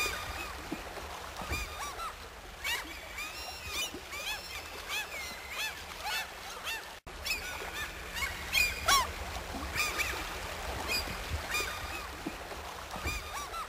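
A flock of waterfowl calling: many short honks and squawks that rise and fall in pitch, overlapping one another. There is a brief sudden gap in the sound about seven seconds in.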